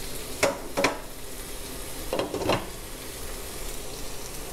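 A wooden spatula scrapes through cooked basmati rice in a nonstick pan twice. About two seconds in, a glass lid is set on the pan with two knocks, over a steady hiss.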